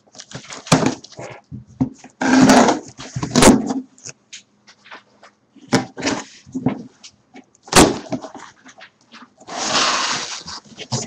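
A cardboard shipping case being opened by hand: packing tape ripped off and cardboard flaps pulled and scraped, with sharp knocks as the box is handled. There are two longer stretches of rough tearing, a little after the start and near the end.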